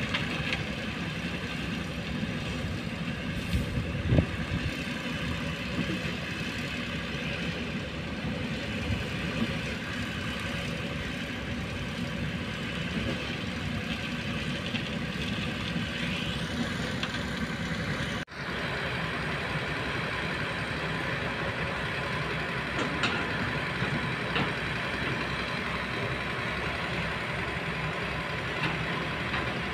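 Heavy diesel construction machinery running steadily: a concrete mixer truck, concrete pump and Kobelco hydraulic excavator. There is one sharp knock about four seconds in, and the sound cuts out for a moment about two-thirds of the way through.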